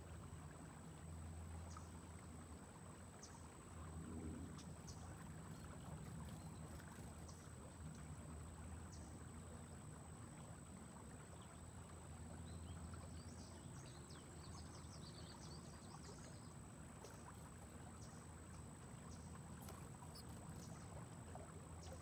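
Faint riverside ambience: soft lapping and trickling of slow river water over a low steady rumble, with a few faint high chirps about two-thirds of the way through.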